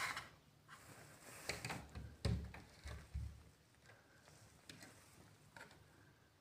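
A few soft taps and dull thumps of a hand against a window pane, the loudest a little over two seconds in.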